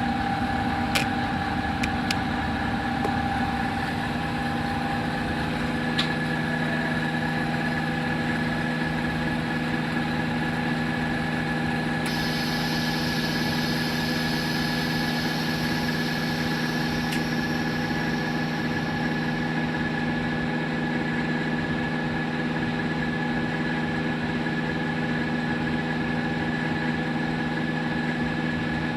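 Workshop machinery humming steadily, with several held tones and a few faint clicks; a higher tone joins about six seconds in.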